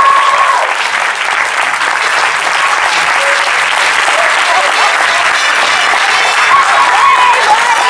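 Theatre audience applauding, a dense steady clapping, as a held musical note dies away about half a second in; a few voices call out over the clapping near the end.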